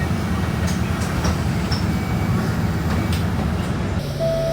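Steady low rumble of a moving vehicle, with a few faint ticks and squeaks over it. About four seconds in, the rumble cuts off and a steady hum with a thin high tone takes over.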